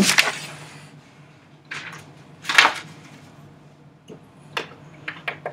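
Sheet of paper being slid across and lifted off a wooden desk: three short rustling swishes, then several small sharp clicks and taps near the end.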